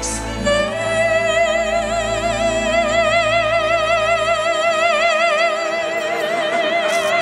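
Operatic soprano singing, holding one long high note with wide vibrato over the musical accompaniment.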